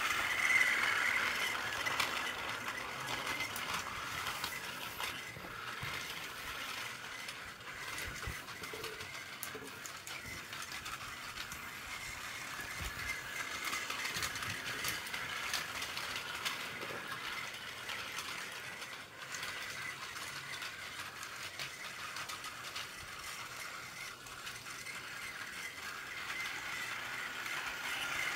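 Plarail battery-powered toy train running on plastic track: a high motor whir and rattling wheels ticking over the track joints. It is loudest as the train passes close at the start and again near the end, and fainter while it circles the far side.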